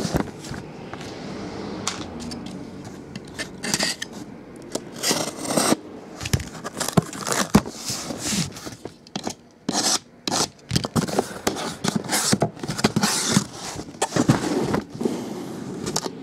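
Cardboard case and the wrapped card boxes inside being handled: irregular scraping and rubbing of cardboard, with sharp knocks and clicks as boxes are pulled out and set down on the table.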